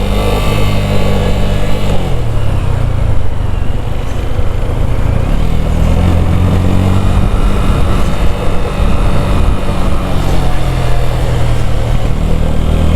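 Sinnis Akuma 125cc motorcycle engine running on the move, heard from the rider's position with wind rush over it. The engine note drops about two seconds in, climbs again around five seconds in, holds, then falls once more near the end.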